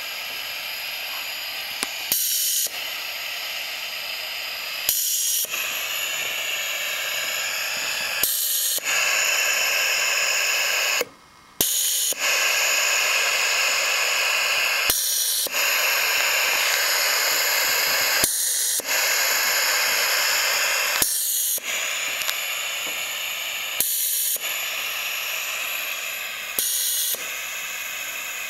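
Compressed air hissing through valves that regulate the pressure in a balloon. About every three seconds a click and a half-second change in the hiss as the valves switch, and a brief cut about eleven seconds in.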